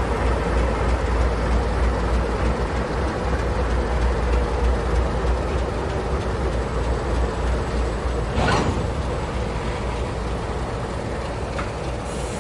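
Old 48 class diesel locomotives, each with an Alco six-cylinder 251 engine, rolling slowly past running light engine: a steady low diesel rumble. A short hiss comes about eight seconds in.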